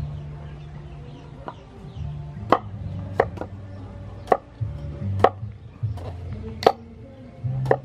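Cleaver chopping through pumpkin onto a wooden cutting board: about eight sharp knocks at uneven intervals. Background music with a low bass line underneath.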